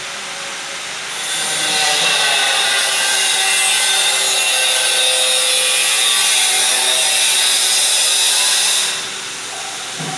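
A loud, steady mechanical whirring with a hiss that starts about a second in and cuts off sharply near the end.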